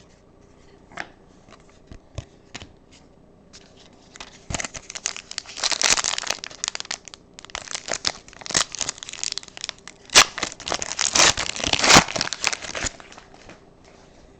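Foil trading-card pack being torn open, its wrapper crinkling and crackling in the hands, after a few light clicks of card handling. The crinkling starts about four seconds in, is loudest about halfway through and near the end, and dies away just before the end.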